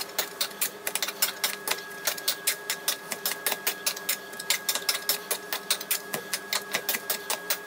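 Metal potato masher pounding boiled potatoes in a nonstick pot, making rhythmic knocks about four a second, over a faint steady hum.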